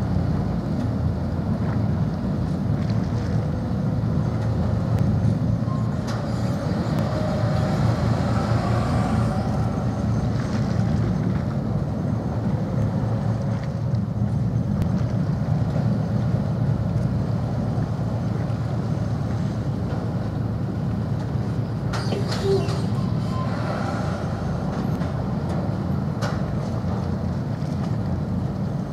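A steady low rumble, with faint brief tones in the middle and a few short clicks about 22 seconds in.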